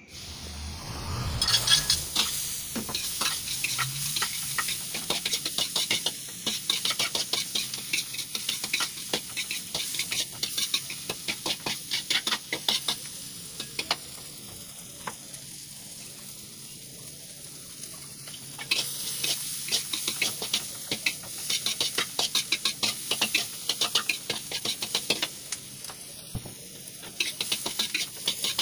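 Chopped onion and garlic sizzling in oil in a wok, with a metal spatula scraping and clicking against the pan as it is stirred. It starts about a second in, and about halfway through the stirring stops for a few seconds, leaving only the sizzle, before it starts again.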